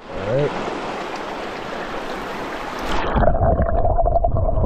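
Rushing water of a mountain trout stream. About three seconds in the sound turns muffled and low, with a deep rumble and burble, as the microphone goes under the water's surface.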